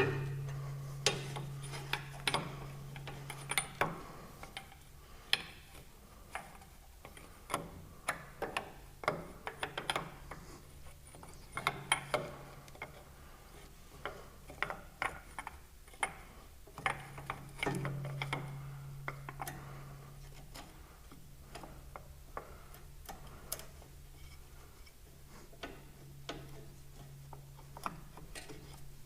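Hand tools working on metal tractor fittings: irregular clicks and clinks, with ratchet-like clicking, over a low hum that comes and goes.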